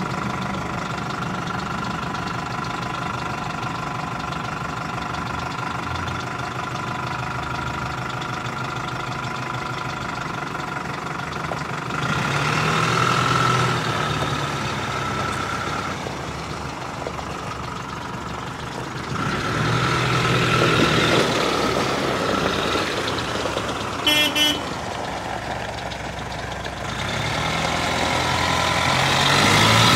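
Fendt Xylon tractor's diesel engine running as the tractor drives, the revs rising under load three times, about twelve seconds in, near twenty seconds and toward the end. A short tooting beep sounds once, about three-quarters of the way through.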